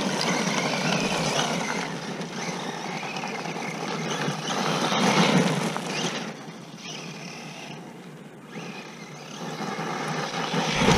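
Electric 1/10 RC monster truck driving over loose gravel: a motor whine and tyres crunching on the gravel, getting louder about a second in and again around five seconds, dropping back for a few seconds, then swelling again near the end.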